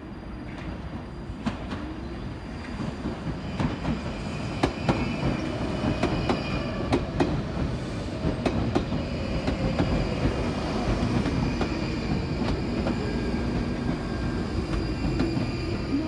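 London Underground 1995 Stock train pulling into the platform, growing louder over the first few seconds as it approaches. Its wheels click over the rail joints, and a steady high whine comes in as it slows to a stop.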